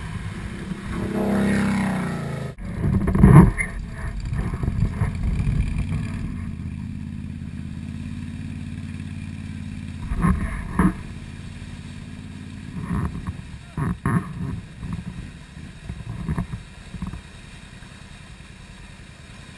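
Can-Am Renegade ATV engine revving in repeated surges as the quad churns through a deep, water-filled mud hole; the revving grows fainter toward the end.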